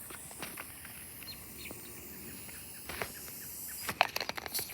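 Faint outdoor background noise with a few brief, high bird-like chirps. There are a couple of sharp clicks about three and four seconds in.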